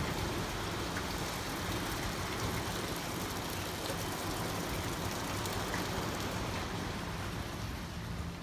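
Steady rushing noise of surf and sea breeze at a beachfront, under a faint low hum.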